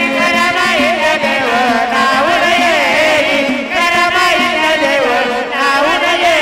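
Marathi gondhal devotional song: a loud melody line, wavering and heavily ornamented, over steady accompaniment with faint percussion strokes.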